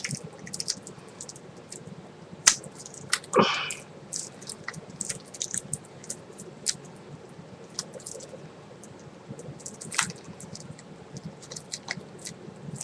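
Fingers picking and pulling at thick plastic shrink-wrap on a box set, giving short, irregular crinkles and scratches, with a louder crackle about three and a half seconds in.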